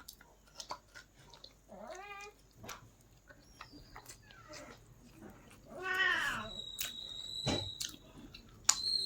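Chewing and mouth clicks after the last bite, with two short, wavering pitched cries about two and six seconds in.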